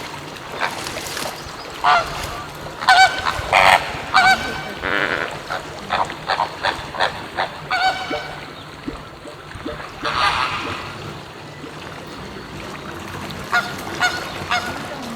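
Flock of flamingos honking: many short calls, densest in the first half, with another burst about ten seconds in and a few more near the end.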